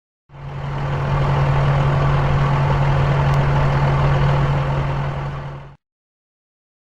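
Bulldozer's diesel engine running steadily with a deep rumble, fading in at the start and fading out about a second before the end.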